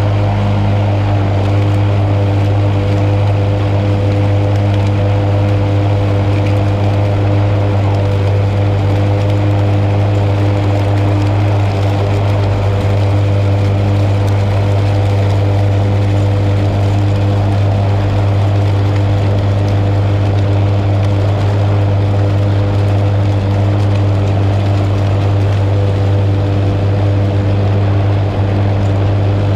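Lawn mower engine running steadily while mowing grass: a loud, even drone with no change in pitch.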